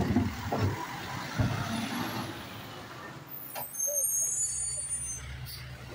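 Automated side-loader garbage truck: a few metallic clanks and knocks from the lift arm and cart in the first second and a half, the first the loudest. About three and a half seconds in, the diesel engine rises and runs steadily as the truck pulls ahead to the next cart.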